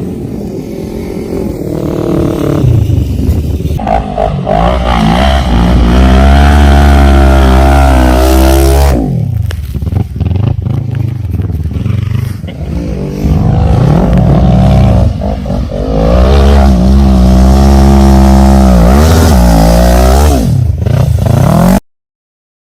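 ATV (quad bike) engine revving hard, its pitch climbing and falling back in two long loud pulls with a lull between. The sound cuts off abruptly near the end.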